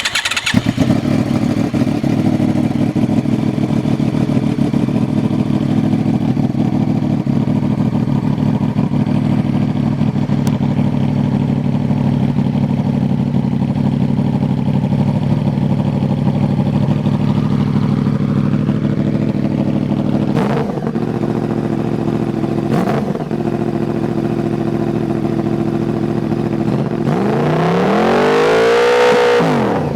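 2009 Yamaha R1's crossplane inline-four idling through a Toce T-Slash aftermarket exhaust, very loud. It is blipped briefly twice, then revved up and let fall back near the end.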